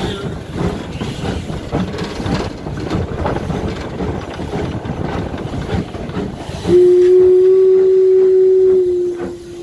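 The 1875 Baldwin 4-4-0 steam locomotive Inyo under way, its beats and clatter heard from the cab, then about two thirds of the way in its steam whistle sounds one long steady blast, dropping slightly in pitch near the end.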